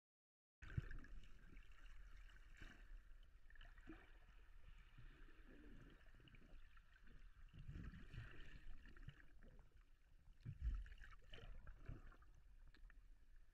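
Faint, muffled underwater water noise heard through an action camera's waterproof housing: low sloshing and rumbling that swells unevenly, with one louder low bump about ten seconds in. It starts suddenly about half a second in, after dead silence.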